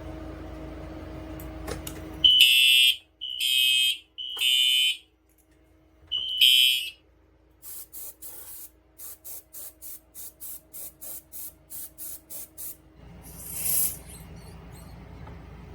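Fire alarm horn sounding the temporal-three evacuation code: three loud, high-pitched half-second blasts, a pause, then a fourth blast. It is followed by a run of fainter, very high clicks at about three to four a second, and a short noisy swell near the end.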